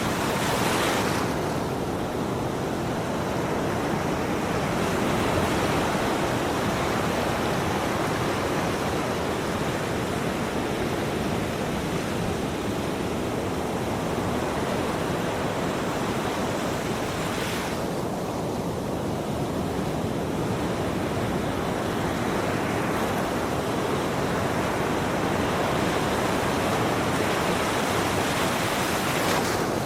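Ocean waves breaking and washing on a shore, a steady rushing surf with slow swells in the spray about a second in, midway and near the end.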